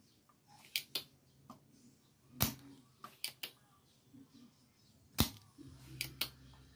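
Scattered sharp clicks and taps of a soldering iron tip against the solder joints and copper side of a CRT TV circuit board while a capacitor is being desoldered, the two loudest about two and a half and five seconds in.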